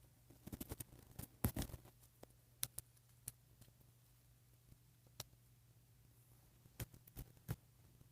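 Faint clicks and taps of small plastic parts being handled as tiny doll shoes are fitted onto a hard plastic doll's feet: a quick cluster in the first two seconds, then scattered single clicks. A steady low electrical hum runs underneath.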